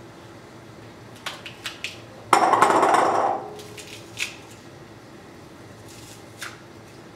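Black plastic garlic press in use over a glass bowl: a few light clicks and taps, then about a second of loud crunching as a garlic clove is squeezed through, followed by two more single taps.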